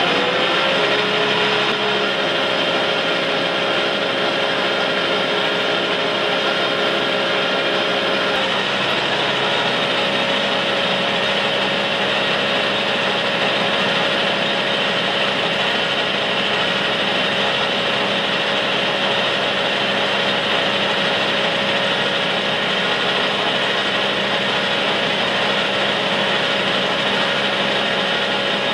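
Metal lathe coming up to speed, then running steadily while its cutting tool turns down a bar of 4130 pre-hardened steel into a pin. A steady hum over a hiss of cutting noise, one of its tones dropping out about eight seconds in.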